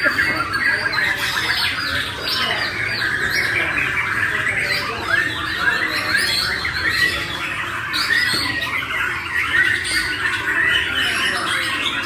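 Several caged white-rumped shamas (murai batu) singing at once in a dense, overlapping chorus of rapid whistles, chirps and trills that never lets up.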